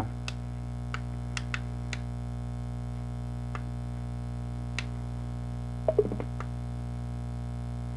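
Faint clicks of buttons being pressed on a small plastic Bluetooth alarm clock, over a steady low hum. A brief louder sound comes about six seconds in, as the clock's display switches to OFF.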